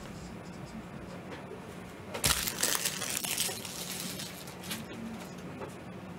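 A knock about two seconds in, then about a second and a half of crinkling, as of plastic or foil packaging being handled.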